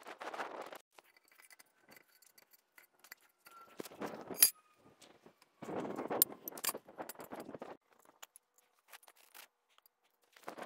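A steel pedestal post being stood on its concrete pad and fitted over the anchor bolts: metal clinks and scrapes, with one sharp metal clank about four and a half seconds in. Boots shuffle in dry leaves between the knocks.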